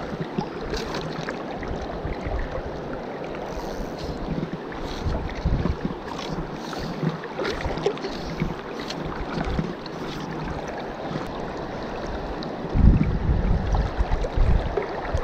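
Shallow river rapids running steadily as a close, even rush of water. Bursts of low wind noise buffet the microphone near the end.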